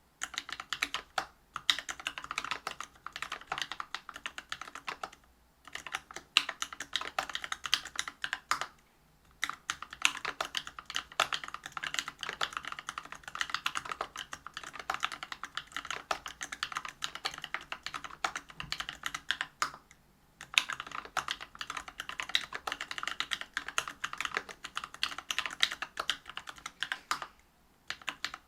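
Continuous typing on a Whale 75 mechanical keyboard with stock Bingsu POM linear switches on a brass plate and PBT keycaps: a rapid stream of key strokes, stopping briefly four times.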